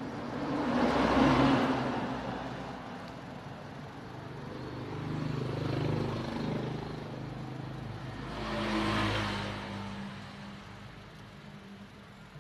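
Motor vehicles passing by one after another: three swells of engine and road noise that rise and fade. The loudest comes about a second in, the others near the middle and about nine seconds in.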